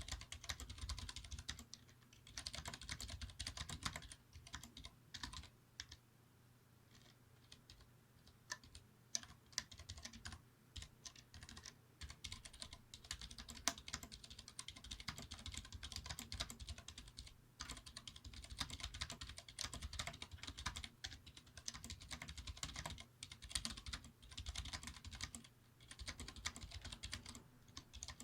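Typing on a Vortex Race 3 mechanical keyboard with Cherry MX Clear switches: fast runs of key clacks in bursts, with short pauses between them. A steady low hum sits underneath.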